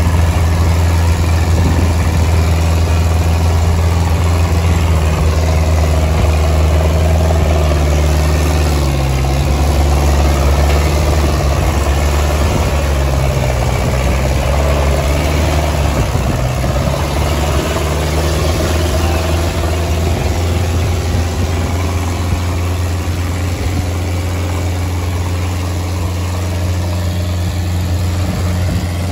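Sonalika 750 tractor's diesel engine running loud and steady while working with a harrow, its pitch sagging for several seconds in the middle and then recovering.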